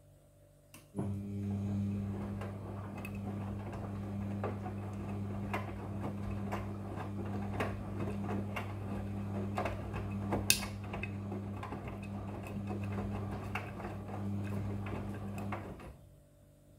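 Front-loading Midea washing machine turning its drum during the wash: a click, then the motor hums steadily for about fifteen seconds and stops near the end. Light irregular clicks and knocks run through the hum as the drum turns.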